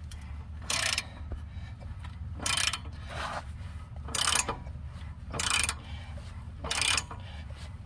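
A 3/8-inch drive ratchet wrench turning the nut of a homemade all-thread bushing press by hand, its pawl clicking in short bursts about once every second or so as the handle is swung back between pulls.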